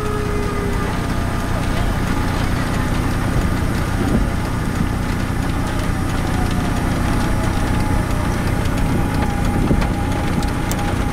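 Wind buffeting the microphone, with an outdoor civil-defense tornado warning siren winding down in the first second, then sounding again faintly from about halfway through.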